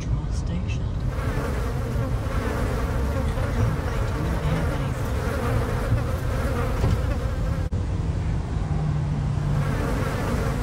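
Steady low buzzing drone of road and engine noise inside a car cabin as the car rolls slowly, with a brief dropout about eight seconds in.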